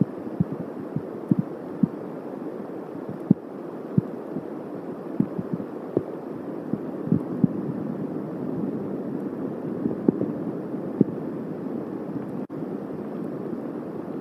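Steady rain during a thunderstorm, with irregular low thumps from drops striking the nest cam's microphone, more of them in the first half.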